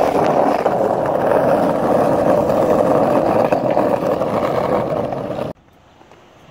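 Skateboard wheels rolling over rough, cracked asphalt: a loud, steady rolling rumble that cuts off suddenly about five and a half seconds in, leaving a much quieter background.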